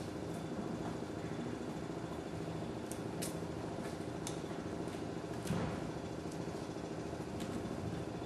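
Scattered knocks and clanks, the loudest a thump about halfway through, as a 12-foot aluminum rowboat and its gear are handled. Under them runs a steady low hum like an idling engine.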